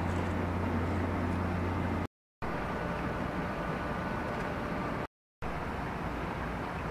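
Steady outdoor background noise with a low mechanical hum, the sound of distant engines across the water. It drops out to silence twice for a fraction of a second where the shots change.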